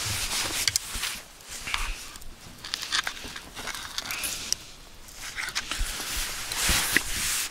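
Rustling and scattered light clicks of handling: a nylon jacket sleeve moving and metal tongs working grilled steak on a wooden cutting board.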